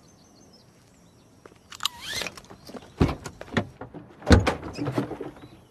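The back of a truck's cargo area is opened: latch clicks and a short squeak, then two heavy thumps about three and four seconds in, the second the loudest.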